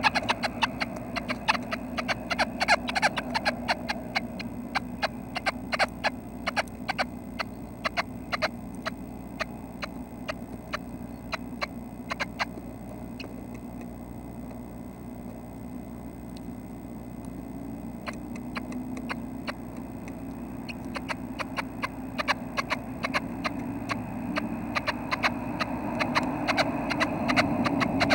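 Red-breasted nuthatch nestlings stirring in a nest box: irregular clicks and scratches of their feet and bills against the box and nest material. The clicking thins out around the middle and picks up again toward the end.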